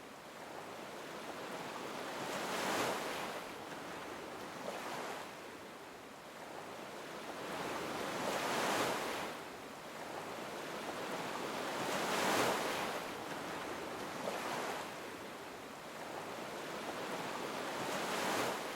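Ocean surf: waves break and wash back in slow swells, about six in the space, each rising and falling over a few seconds.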